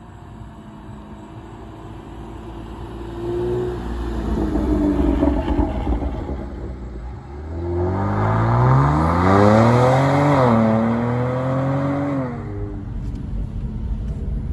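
Kia Stinger GT2's 3.3-litre twin-turbo V6 breathing through Injen intakes and a Borla cat-back exhaust, driving up and past, then accelerating hard away. Its note climbs in pitch about halfway through, dips once at a gear change, climbs again and falls away near the end as the throttle is lifted.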